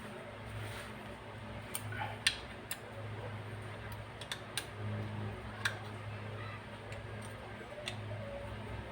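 Light clicks and taps of small tools and parts being handled, about eight of them at irregular intervals, over a steady low hum.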